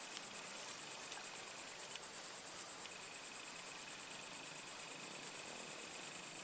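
Insects trilling steadily in a continuous high-pitched, rapidly pulsing chorus, with a fainter, lower steady tone alongside.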